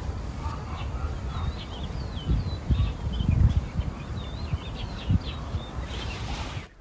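A small bird chirping and whistling in a quick series of short, rising and falling notes, over low, irregular rumbling and thumps of wind and handling on the microphone.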